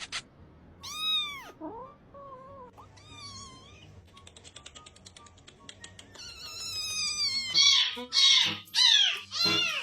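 A cat meowing over and over, in rising-and-falling calls, with several loud meows close together near the end.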